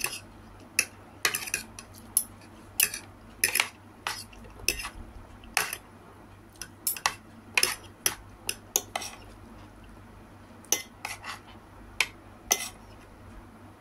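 Metal spoon and fork clinking and scraping against a plate as rice and greens are scooped up: sharp, irregular clicks, some in quick pairs, spread throughout.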